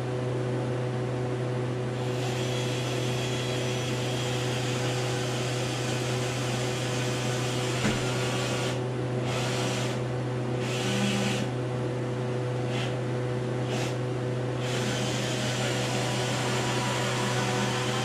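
Steady electric fan-type motor hum: a constant low drone with a faint steady whirr above it, holding level without starting, stopping or changing pitch.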